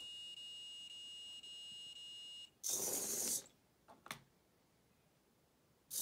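Small servo motor on a LEGO micro:bit rover whirring in two short bursts as it swings a LEGO arm, with a couple of light clicks between them. Before that, a steady high electronic whine cuts off suddenly about two and a half seconds in.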